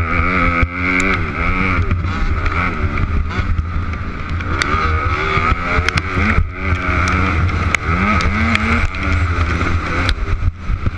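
Dirt bike engine heard from on board, its pitch rising and falling over and over as the rider works the throttle through the gears, with scattered sharp knocks from the rough track.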